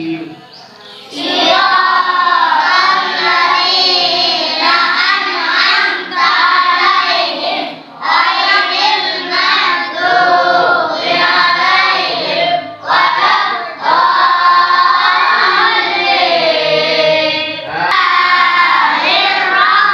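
A group of children chanting a religious recitation aloud in unison, in a sing-song melody. They start about a second in and go on in phrases with brief breaths between them.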